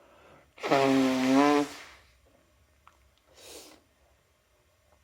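A person with a cold sneezing once, a loud voiced sneeze lasting about a second, followed by a faint short breath.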